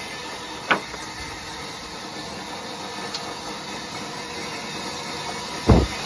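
Two knocks of a sawn wooden board against a stack of boards, a light one about a second in and a heavy one near the end, over the steady running noise of the sawmill machinery.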